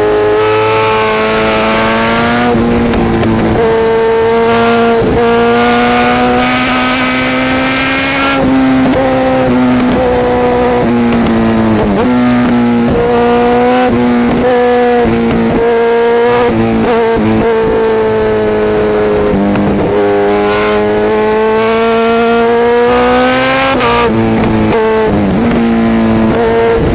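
Motorcycle engine running hard at high revs, its pitch holding steady, then dipping and climbing again a few times as the throttle is rolled off and back on through the curves.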